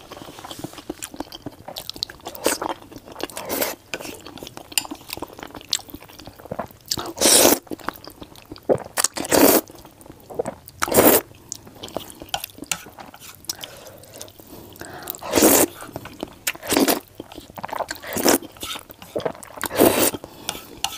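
Close-miked eating of saucy instant noodles: wet chewing and mouth sounds, with a louder slurp every few seconds.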